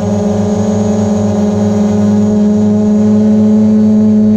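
DJI Mavic Pro quadcopter hovering just above the ground, its four propellers and motors giving a steady, loud buzzing hum.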